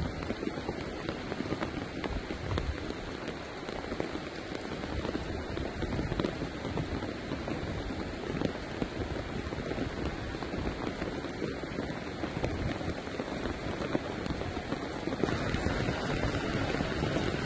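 Steady rain falling, a dense even hiss of drops. About fifteen seconds in, the sound changes abruptly to a slightly louder, brighter hiss.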